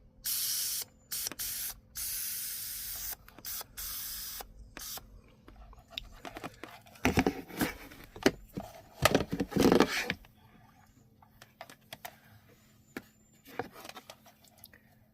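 Aerosol evaporator foam cleaner hissing out through a straw into the car's HVAC evaporator housing, in three long bursts over the first four seconds or so. Scattered knocks and rustling follow later as the can and straw are handled.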